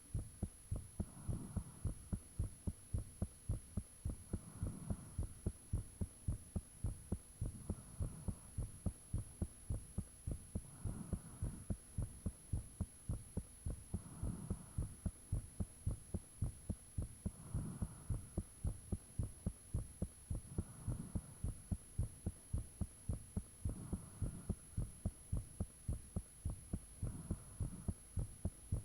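A human heartbeat recorded close to the chest: quick, regular low thumps, about three a second. A soft hiss swells about every three seconds, which the recorder takes for blood rushing through the heart's chambers.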